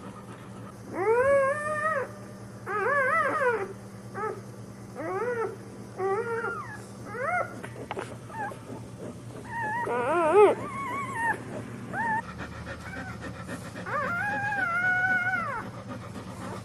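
Newborn pit bull puppies crying: a string of high, thin squeals that rise and fall in pitch, some short and some about a second long, with the longest near the start and near the end.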